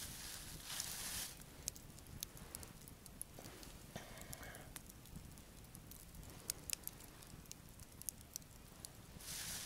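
Wood campfire crackling with scattered sharp pops, and a plastic bag of marinated pork rustling briefly, about a second in and again near the end.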